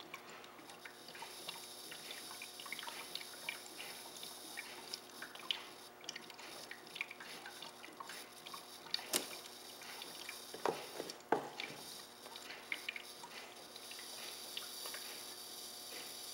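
Water bubbling and dripping steadily in an HHO electrolysis cell making gas, with many small pops and a few sharper clicks about nine to eleven seconds in.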